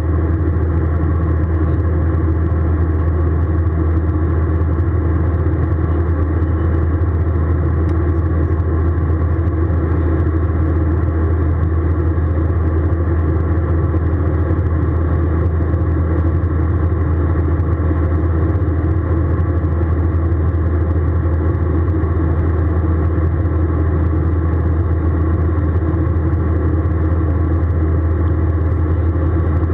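Airbus A320 airliner cabin noise: a steady, loud low drone of the jet engines and airflow, unchanging throughout.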